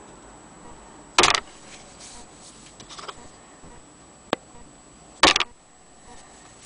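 Handling noise: two short loud scrapes about four seconds apart, with a single sharp click between them, over a faint steady high whine.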